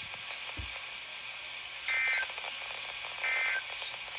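Emergency Alert System end-of-message signal: two short, identical bursts of two-tone digital data, about 1.3 seconds apart, over the steady hiss of a radio receiver. The bursts mark the end of the warning just read.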